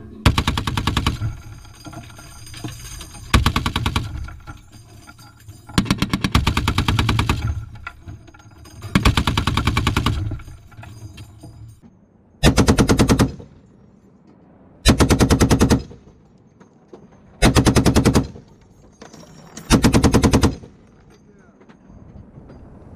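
Browning M2 .50 caliber heavy machine gun firing short bursts of rapid shots, each about a second long, eight in all; the last four come evenly, about every two and a half seconds.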